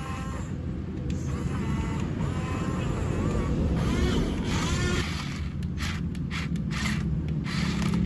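RC toy excavator and dump truck running, a low rumbling motor-and-gear noise, with a steady hum joining near the end. Voices are faint in the background.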